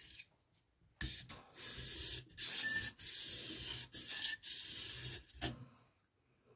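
Steel knife blade scraped back and forth along a wet Parkside 2-in-1 whetstone while sharpening: a run of about seven hissing scrapes, each roughly half a second long with short gaps, starting about a second in and stopping about five and a half seconds in.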